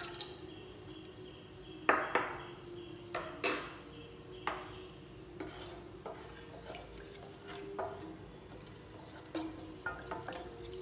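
Wooden spatula stirring a thin corn flour mix in a steel saucepan, with scattered knocks and scrapes against the pan.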